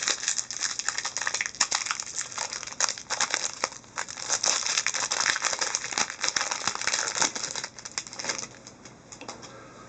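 Crinkling of a hockey card pack's foil wrapper as it is handled and opened: dense, irregular crackling with sharp clicks, easing off near the end.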